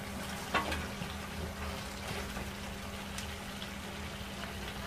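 Chicken filling cooking in oil in a frying pan with a steady low sizzle, as chopped vegetables are tipped in from a plate, with a faint tap about half a second in.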